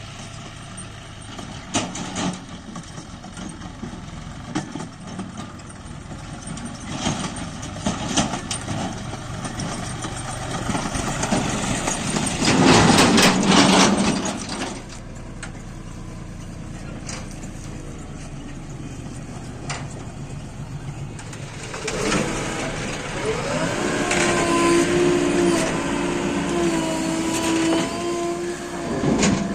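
Diesel engine of a JCB 3DX backhoe loader running under load while it digs and loads mud, with scattered clanks and knocks. A loud rushing burst comes about halfway through, and a steady whine rises near the end.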